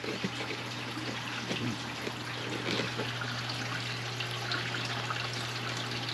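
Water trickling through a Dutch-bucket hydroponic system, with a steady low hum underneath.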